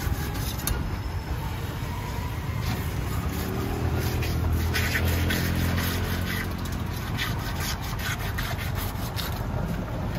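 Knife blade scraping scales off a large rohu, a rapid run of short rasping strokes. A low engine hum swells and fades in the middle.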